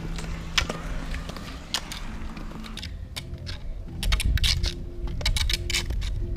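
Roller-ski pole tips clicking irregularly on asphalt, over the low rumble of roller-ski wheels rolling on the road and wind on the microphone. The clicks come thicker after about three seconds.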